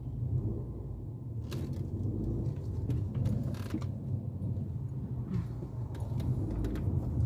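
Steady low rumble of a car's engine and tyres heard from inside the moving car, with a few brief faint clicks.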